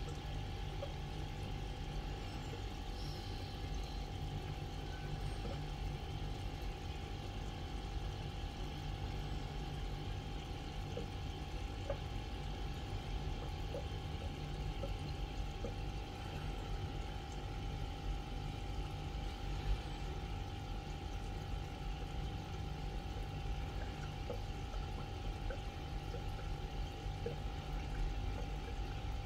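Aquarium water pump running steadily: a constant low hum with a steady tone and a faint sound of moving water.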